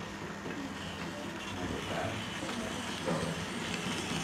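Model electric train running along its layout track with a steady low hum, against faint background voices.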